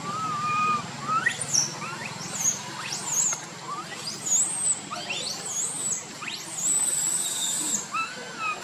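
Baby macaque calling: a string of short, high squeaks that sweep sharply upward, with a few lower wavering coos at the start and near the end.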